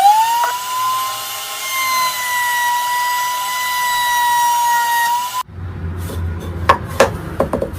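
Trim router motor spinning up with a quickly rising whine, then running steadily at high speed with no load. It cuts off sharply about five seconds in, and a lower rumbling noise with a few sharp knocks follows.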